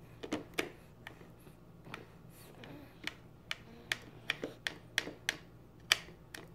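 A small plastic feeding spoon clicking and tapping against a plastic plate: about a dozen sharp, uneven clicks, coming faster in the second half, the loudest just before the end.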